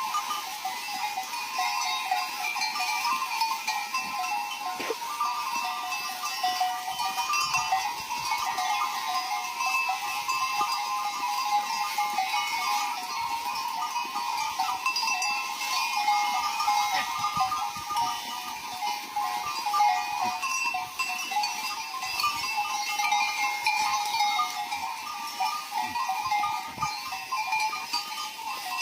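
A large herd of goats bleating, many overlapping calls blending into a continuous chorus.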